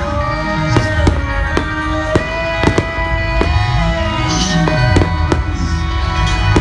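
Fireworks going off in irregular sharp bangs, several a second, over loud music with a sustained melody.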